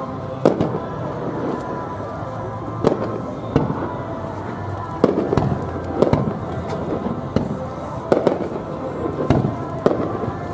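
Aerial firework shells bursting in a run of sharp bangs, roughly one a second at irregular gaps.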